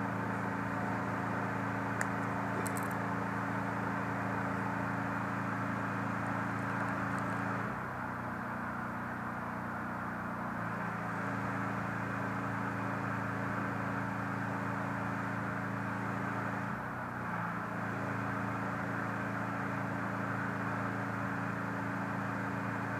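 A steady machine hum runs throughout, briefly dropping and shifting in pitch about eight seconds in and again near seventeen seconds, with a couple of faint clicks around two seconds in.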